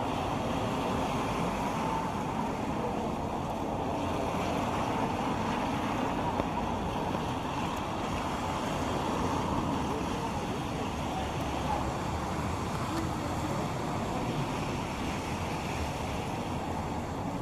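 Steady hiss of rain and traffic on wet city streets.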